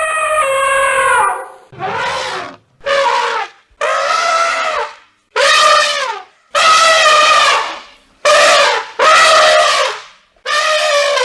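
Elephant trumpeting: a run of about nine loud trumpet calls, each around a second long with short gaps between, several falling in pitch at the end.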